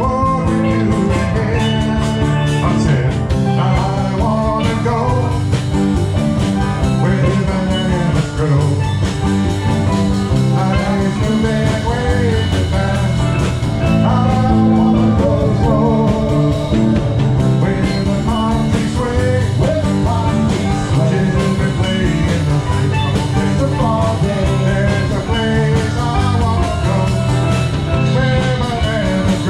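Live band music with guitar, bass guitar, drum kit and steel drums, at a steady, loud level.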